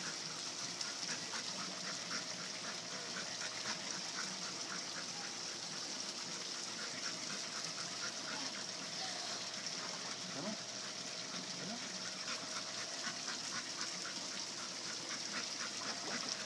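Dog panting in quick, short repeated breaths, over a steady high hiss.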